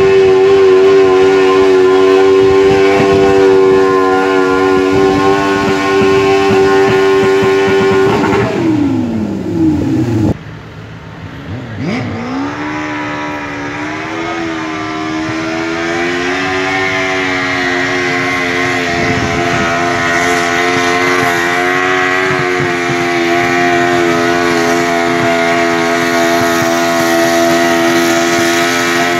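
Small lawnmower engine running steadily at speed. About eight seconds in its pitch falls away and the sound drops off suddenly; a couple of seconds later it rises back up and runs steady again.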